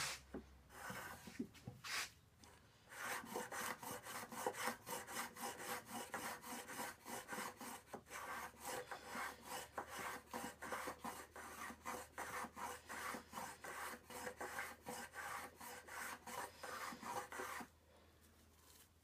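Axminster Rider 102 apron plane, a small cast-bodied hand plane, taking shavings off a piece of wood in quick back-and-forth strokes, about three a second, with a few slower strokes at first and a stop near the end. The new plane is cutting straight out of the box, with a little force needed.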